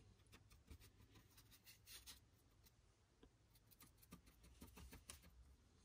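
Faint scratching and dabbing of a paintbrush worked over a hard hydrocal plaster surface, blending in a weathering wash, with scattered light ticks as the bristles catch.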